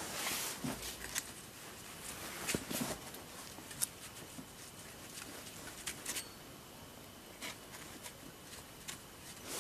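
Faint scattered clicks and light rustling over a low steady hiss.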